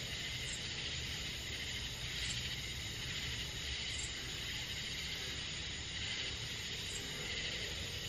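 Night chorus of crickets and other insects, a steady high trilling with faint short ticks every second or two, over a low steady rumble.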